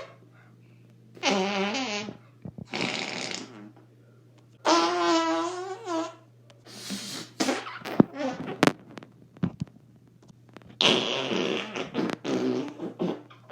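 Arm farts: fart noises made by pumping an arm against the armpit, about six of them, each up to about a second and a half long with a wavering pitch and short pauses between. A faint steady hum runs underneath.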